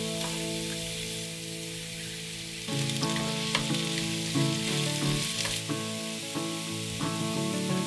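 Mushrooms (eryngii, shiitake and shimeji) sizzling in olive oil and garlic in a frying pan over medium heat, with the scrape and click of a spatula stirring them now and then. Soft background music plays underneath.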